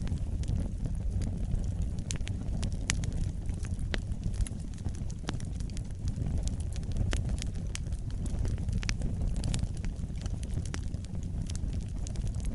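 Wood fire burning in a fireplace, a steady low rumble of flames with irregular sharp crackles and pops.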